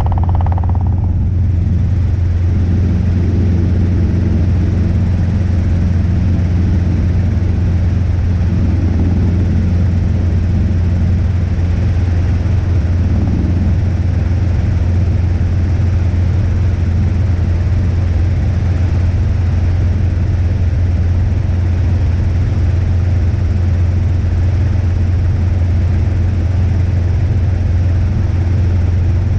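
Robinson R22 helicopter in cruise, heard from inside the cabin: a steady deep drone of rotor and piston engine with a constant rushing noise over it. A higher hum cuts out about a second in.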